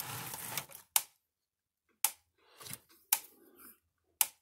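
Gallagher M1500 electric fence energizer firing its output pulses: a sharp snap about once a second, four in all, the repaired unit putting out a strong, hot pulse. Some handling rustle in the first second.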